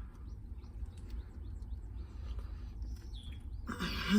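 A man quietly chewing a bite of cheeseburger over a steady low hum, with a short louder breath or vocal sound near the end.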